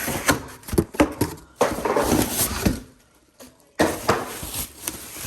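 Pressure washer parts and packaging being handled during unboxing: a quick run of knocks and clicks from parts being set down and moved, then two stretches of rustling.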